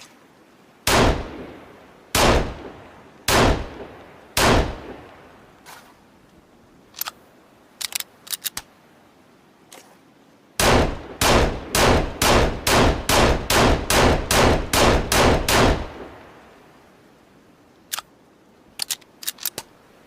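Heckler & Koch USP Compact pistol firing four single shots about a second apart, each with a ringing tail. Light metallic clicks of handling follow. Then comes a fast string of about a dozen shots at roughly two to three a second, and a few more clicks near the end.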